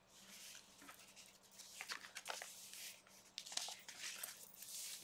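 Paper pages of a handmade junk journal being turned by hand: soft rustling with several sharp crackles of the old, dyed book paper.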